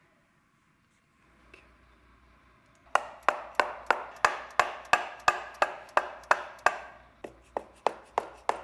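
Hammer blows on the intake manifold of a Toyota 2T engine, about three a second, starting about three seconds in and getting softer toward the end: the manifold is being knocked loose from its studs and gasket.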